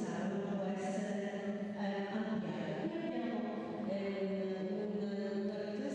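Chant-like singing: a voice holds long notes that step slowly from pitch to pitch, with a few sung words hissing on their 's' sounds.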